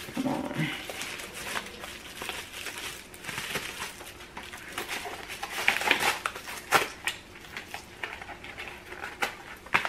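Plastic bubble-wrap pouch crinkling and crackling as it is handled, with irregular small clicks and rustles.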